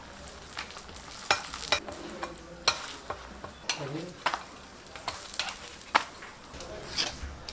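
Porottas frying on a flat iron griddle: a steady sizzle with irregular sharp taps and scrapes of a metal spatula on the griddle as the breads are turned and pressed.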